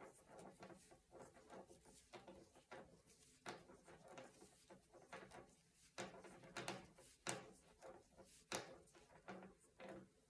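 Near silence with faint, irregular soft clicks and rustles of circular knitting needles and wool yarn as stitches are knitted.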